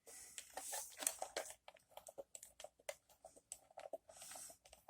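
Faint, irregular small clicks and scratching from fingers and a small tool handling a tiny plastic Kadee HO-scale coupler and its gearbox while the spring is being worked into place.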